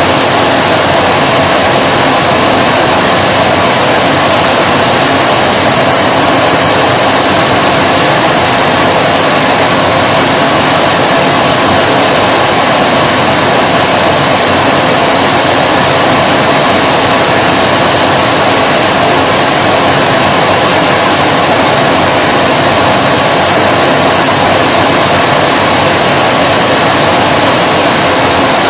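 Vacuum cleaner running continuously, a steady, loud motor whine and airflow hiss that holds unchanged throughout.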